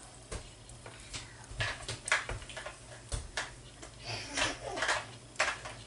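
Scattered light knocks and clinks mixed with short bursts of rustling, like things being handled in a kitchen.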